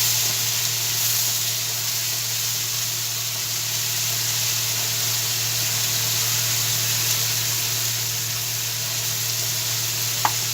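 Schezwan sauce of chili paste, vinegar and ginger-garlic sizzling steadily in hot oil in a pan over a high flame, with one short tap near the end.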